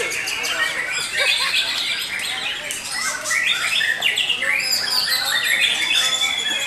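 Several white-rumped shamas singing at once, fast varied phrases overlapping one another, with one long high whistle held from about five seconds in.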